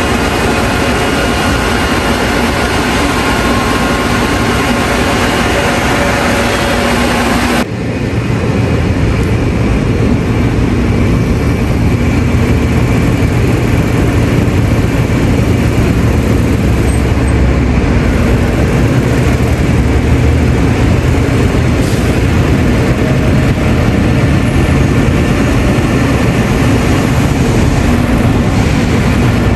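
Buses idling in a queue: a steady engine hum with a few steady tones. About eight seconds in it cuts to a deeper rumble of bus traffic moving along the street.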